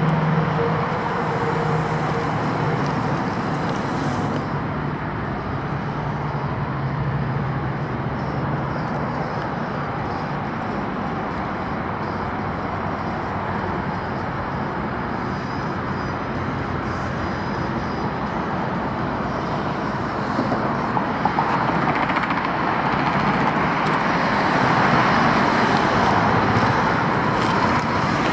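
Steady road traffic noise, with a low engine hum in the first several seconds and the traffic swelling louder over the last several seconds.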